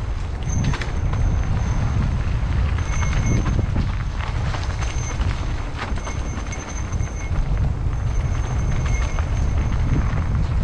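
Electric mountain bike being ridden along a rough dirt trail: wind buffeting the microphone with a steady low rumble, frequent clicks and rattles from the bike over the ground, and a thin high whine that comes and goes.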